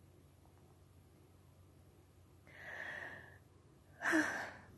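A woman breathing out audibly twice in a quiet room: a soft breath about two and a half seconds in, and a louder, shorter one near the end.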